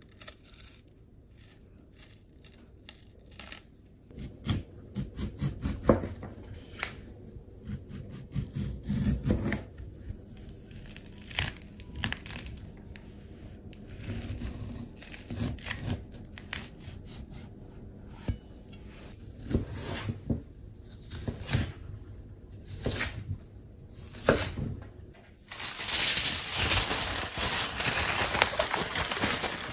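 Husk layers of a fresh bamboo shoot being peeled back with a kitchen knife, giving irregular scraping and tearing sounds. About 25 seconds in, aluminium foil starts crinkling, loud and continuous, as the shoot is wrapped.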